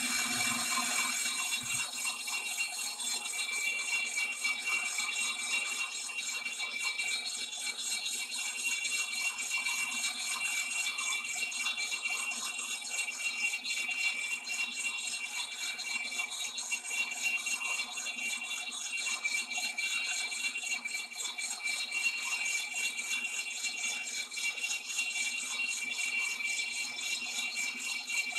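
Large Monarch engine lathe taking a truing cut on a trommel trunnion wheel with an indexable insert: a steady crackling rattle of chips coming off the cut, over a steady high whine and low hum from the running lathe.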